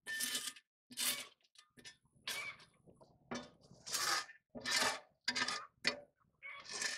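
Metal fire tool scraping and raking through coals and ash on the steel floor of an offset smoker's firebox, in about nine short rasping strokes roughly a second apart, clearing out the fine ash from the coal bed.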